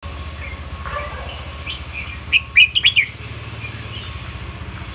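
Red-whiskered bulbul singing: a few soft whistled chirps, then a quick run of loud whistled notes about two and a half to three seconds in. A steady low hum runs underneath.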